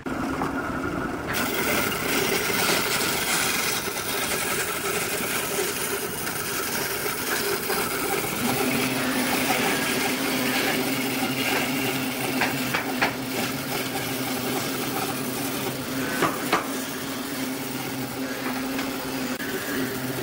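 Bandsaw running and cutting a curve through a thick hardwood slab: a steady motor hum under the hiss of the blade in the wood, with a few sharp ticks in the second half.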